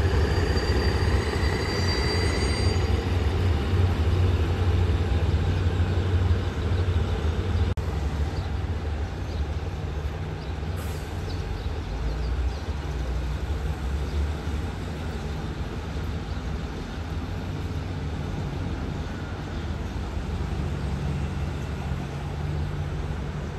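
Diesel locomotive running in a rail yard, a deep steady engine rumble that eases after about eight seconds and carries on lower. A faint high wheel squeal sounds in the first couple of seconds.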